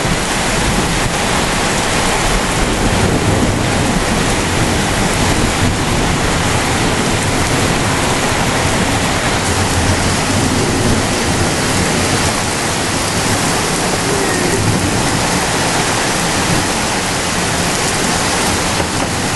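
Heavy rain falling in a steady downpour during a thunderstorm, a loud, even hiss with no distinct thunderclap.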